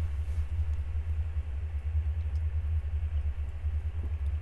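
A steady low hum fills the room, with the quiet sounds of a man sipping from a can of iced coffee barely showing above it and a faint tick about four seconds in.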